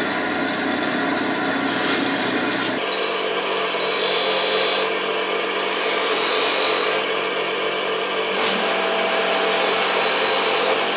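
Bench grinder running with an aluminum block held against its wheel, grinding the sharp machined edges off to round them. The grinding gets harsher and louder in stretches as the block is pressed harder to the wheel.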